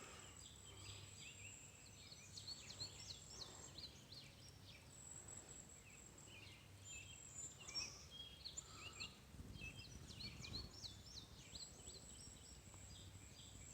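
Birds chirping, many short quick calls overlapping throughout, faint, over a steady high-pitched insect drone.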